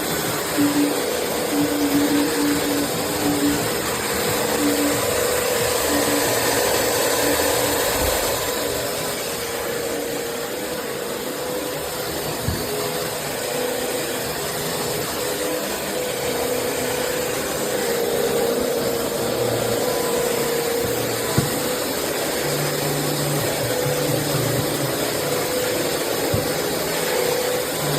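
Bissell CleanView Swivel Pet upright vacuum cleaner running steadily, its motor drawing a constant rush of air.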